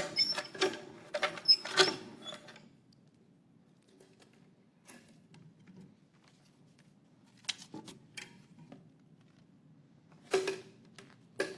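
Hand-cranked wooden lottery drum being turned, its crank and tumbling slips clicking and rattling for about two and a half seconds. After a pause come a few scattered clicks and two sharp knocks near the end as the drum is opened and a slip is drawn.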